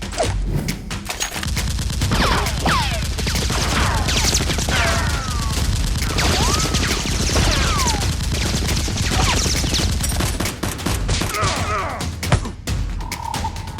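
Sustained rapid automatic gunfire sound effects, many shots a second, with whizzing, sliding streaks running through the middle of it. A steady tone starts just before the end.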